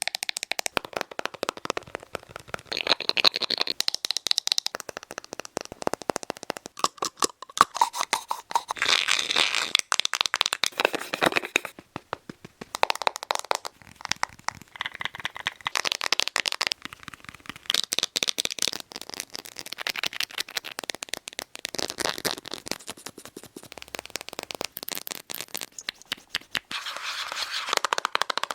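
Rapid tapping on a succession of cosmetic products' cases and packaging, with the tone changing every second or two as a new item is tapped.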